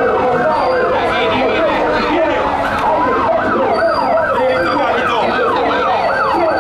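Several sirens sounding at once. Their overlapping pitch sweeps fall over and over, about three times a second, and run steadily at full strength.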